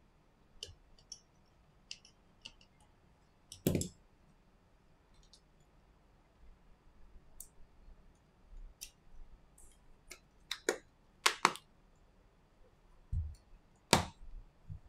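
Light clicks and taps from handling and reassembling an iPhone XS and its small parts, with a sharper click a few seconds in, a quick cluster of them past the middle, and another near the end.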